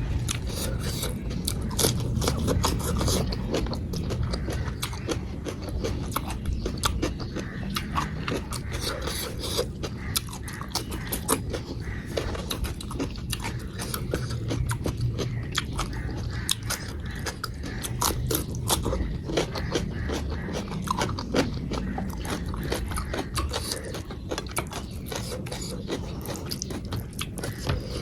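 Close-miked chewing and biting: a person eating, with many quick irregular wet mouth clicks and smacks.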